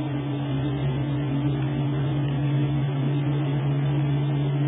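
Steady low drone of a car heard from inside the cabin while driving in heavy rain, with an even hiss of rain and wet road underneath.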